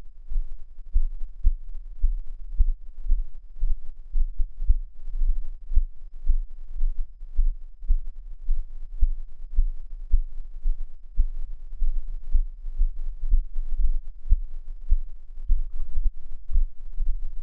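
A low heartbeat-like pulse, about two to three beats a second, over a steady humming drone: an edited-in suspense soundtrack.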